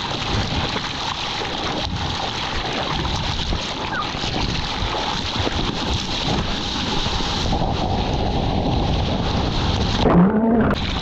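Sea water rushing and splashing around a surfboard-mounted action camera as a surfer paddles out, with wind buffeting the microphone. About ten seconds in, the camera goes under the water and the sound turns briefly muffled.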